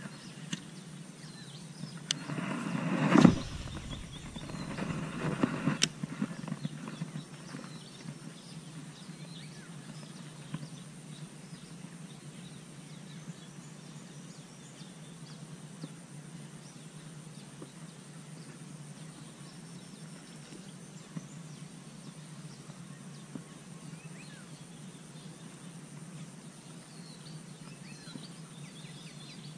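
A cast with a baitcasting rod and reel: a rising swish that peaks sharply about three seconds in, then a couple of seconds of whirring and ticking as line pays out, ending in a click. The rest is steady outdoor swamp ambience with a faint high hiss and occasional small chirps.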